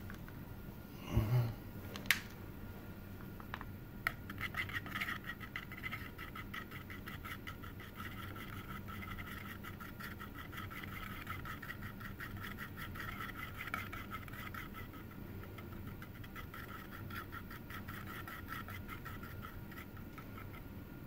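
A thin stirrer scraping around in a dab of JB Weld epoxy on a tin can's metal lid as the two-part epoxy is mixed: a rapid, steady scratching. Near the start there is a knock and a sharp click.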